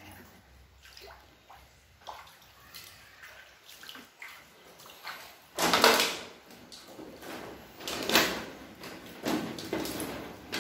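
Floodwater splashing and sloshing on a floor, with scattered knocks and bumps. The loudest splash comes about six seconds in, with more around eight and nine seconds.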